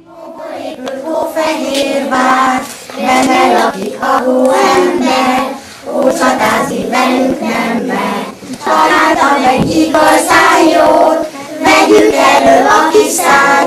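A group of young children singing a song together in sung phrases, with short pauses for breath between phrases.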